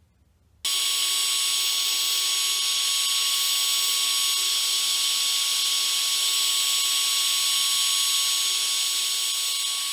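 A 1500-watt heat gun blowing hot air into an engine crankcase half's bearing bore: a steady hiss of rushing air with a steady whine, starting suddenly under a second in. It is heating the case so that the frozen crankshaft bearing will slide in.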